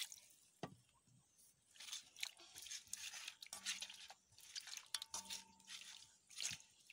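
A hand squeezing and rubbing raw meat chunks in water in a metal wok: faint, intermittent wet squelching and sloshing, with a couple of light knocks.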